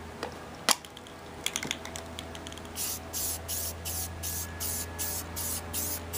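A few sharp clicks, then an aerosol spray-paint can hissing in short quick bursts, about three a second, from about three seconds in.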